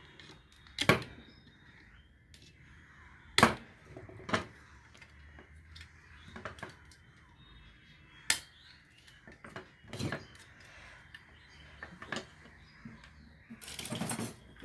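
Small tools and hard plastic parts being handled on a workbench: separate sharp clicks and knocks a second or more apart, with faint ticks between them and a rustle near the end.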